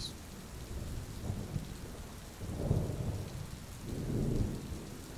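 Thunderstorm sound effect: steady rain with low thunder rumbling twice, swelling about halfway through and again about a second later.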